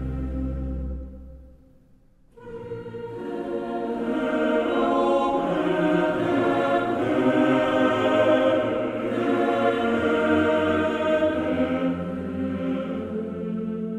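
Music: one piece fades out in the first couple of seconds, and after a brief gap a choir begins singing held chords.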